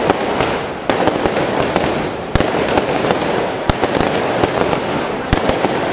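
Firecrackers going off in rapid, irregular cracks, with a few louder bangs, over the continuous noise of a burning falla monument set alight at the cremà.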